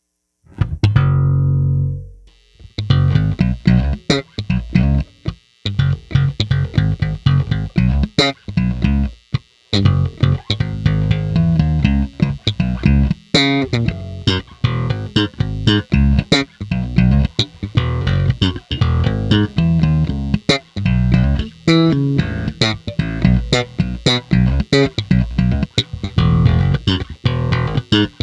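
Fender Player Series Mustang Bass PJ played solo: a single note rings out and dies away, then a busy run of many quick plucked bass notes with sharp attacks and a couple of brief pauses.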